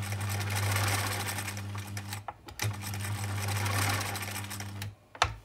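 Bernina sewing machine running under its electronic foot controller: two steady runs of about two seconds each with a brief stop between, then a click. The machine starts smoothly now that the foot controller's capacitor has been replaced.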